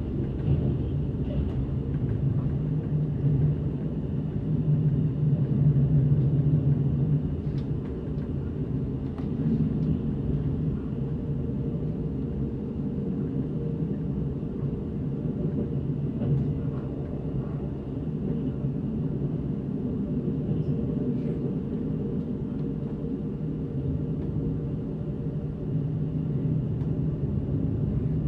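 Steady low rumble of a moving passenger train heard from inside the carriage, swelling a little a few seconds in, with a faint steady high whine above it.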